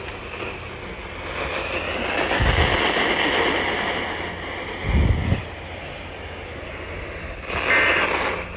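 Weak NOAA Weather Radio signal from station WXL39: mostly steady radio static hiss, with two dull low thumps partway through and short tone bursts near the end.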